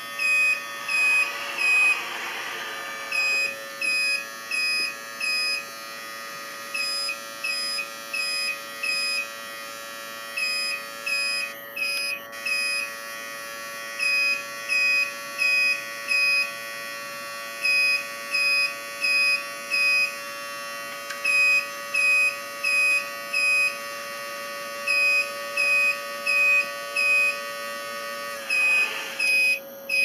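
Electronic reversing beeper on a radio-controlled Cat 740 articulated dump truck model, short high beeps about twice a second with brief pauses every few beeps, over a steady electric whine from the model's motors as it backs up and tips its load.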